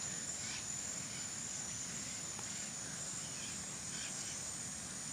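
Insects chirring steadily in the field, a thin continuous high-pitched drone over a soft background hiss.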